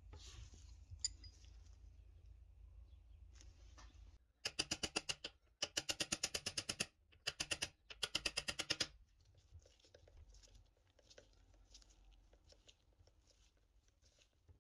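Rapid metallic clicking of a ratcheting hand tool driving a screw into the coin-counting machine's bracket, in four bursts of about a second each with short pauses between. Faint handling taps follow.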